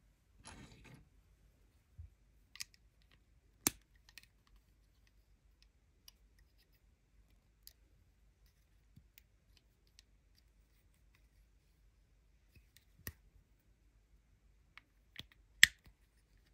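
Scattered small plastic clicks and taps as a building-block minifigure is handled and its arms, legs and head are turned at their joints, with a brief soft rustle about half a second in. The sharpest click comes near the end.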